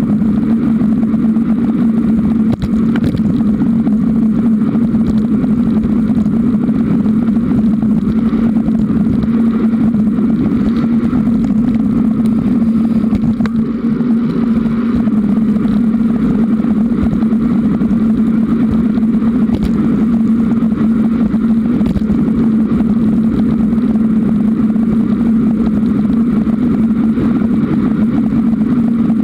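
Steady, loud riding noise from a camera mounted on a Giant Roam 2 hybrid bicycle: wind and the shaking of the mount over the tyres rolling on pavement, with a constant low hum, easing briefly about halfway through.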